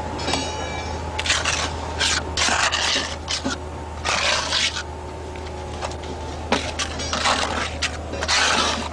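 Trowel scraping cement adhesive out of a bucket and spreading it on a concrete floor slab, in a run of short, irregular scrapes.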